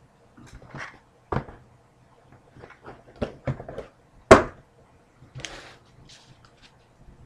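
A cardboard trading-card box and its packs being handled: scattered taps and rustles, with one sharp knock about four seconds in that is the loudest sound.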